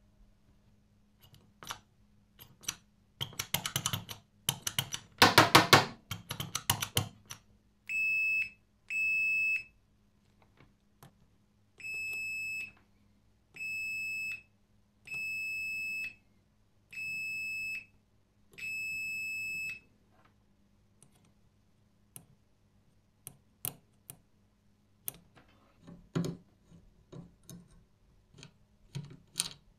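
The door bell's electromagnetic interrupter buzzing in a rapid, loud rattle for a few seconds. It is followed by seven steady beeps of about a second each from a multimeter's continuity tester checking the bell's contacts, then light clicks of the mechanism being adjusted.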